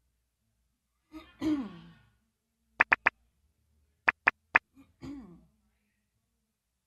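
A woman clearing her throat, a short voiced sound that falls in pitch, twice, with two quick sets of three sharp clicks between them.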